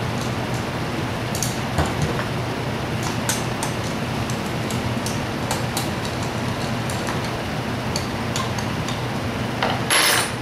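Scattered light clicks and taps of small metal parts and a hand tool as a Zenoah G270RC two-stroke engine is assembled by hand, over a steady low shop hum. A louder, brief noisy sound comes just before the end.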